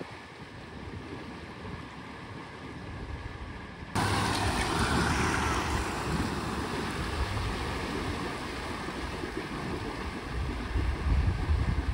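Water surging and splashing around Toyota four-wheel drives wading a deep river crossing, with the engine running low under the wash. About four seconds in the sound steps suddenly louder as a second vehicle is heard pushing through the water.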